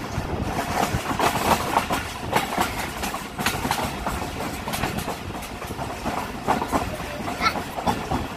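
Passenger train running on the track: a steady rumble with irregular sharp clicks and clatter from the wheels on the rails.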